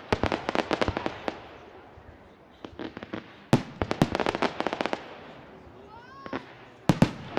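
Fireworks display: aerial shells bursting with sharp bangs, each followed by rapid crackling from many small reports. This comes in three clusters: near the start, about three and a half seconds in, and again near the end.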